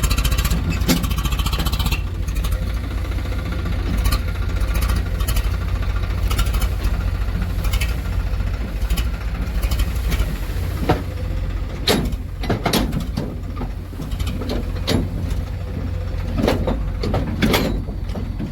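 Heavy diesel engine of earthmoving machinery running steadily with a deep rumble. In the second half a series of sharp knocks and clatters sound over it.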